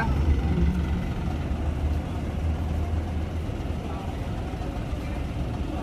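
Steady low rumble of idling heavy diesel engines over a general noise haze, easing slightly after about three and a half seconds.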